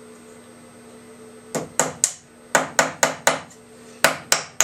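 Small tack hammer driving nails through the top bar into the end bar of a wooden beehive frame: about nine quick metallic taps in three short runs, starting about a second and a half in.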